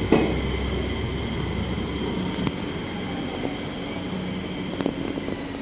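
JR Shikoku 7000 series electric train rolling slowly past as it pulls in, a steady high whine over a low rumble that dies away about two seconds in. A single clack sounds at the start.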